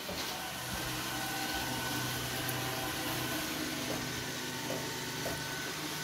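iRobot Roomba S9 robot vacuum running on a hardwood floor: a steady hum from its suction motor and brushes as it drives along.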